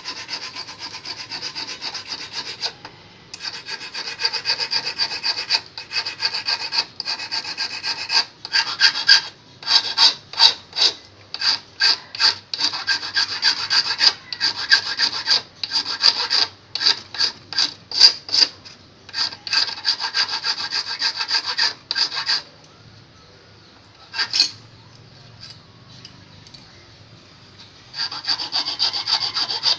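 Small flat steel file rasping across the point and barb of a steel fishing hook, with a metallic ring. It starts in quick runs of short strokes, slows to separate strokes about two a second, pauses for several seconds with a single stroke, and picks up quick strokes again near the end.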